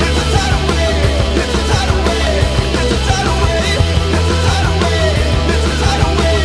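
Background music: a loud, driving rock track with a steady beat.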